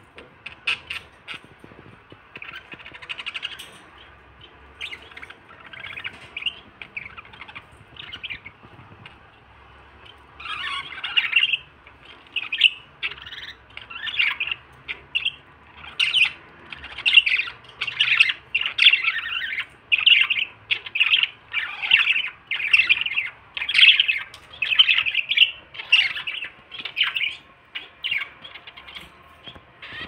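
Budgerigars calling: a run of short, harsh squawks and chirps, scattered at first, then louder and coming in quick succession from about a third of the way in.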